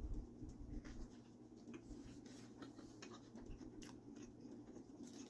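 Close-miked chewing of a turkey sandwich: a bite right at the start, then quiet mouth clicks and smacks scattered through, over a low steady hum.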